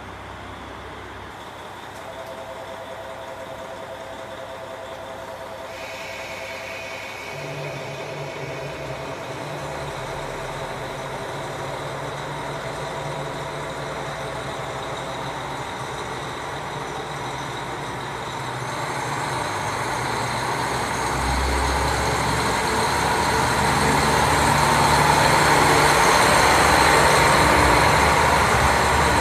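KiHa 40 diesel railcars with their engines running, a steady low drone that grows much louder as one runs past close by, loudest near the end.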